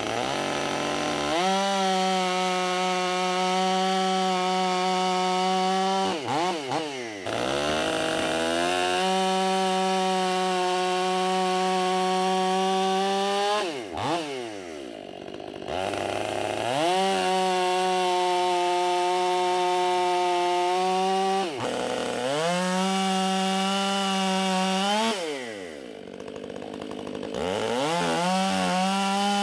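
Stihl MS 500i fuel-injected two-stroke chainsaw cutting thin rounds off a cherry log. It is held at full throttle through about five cuts, with the engine dropping back and revving up again between each one.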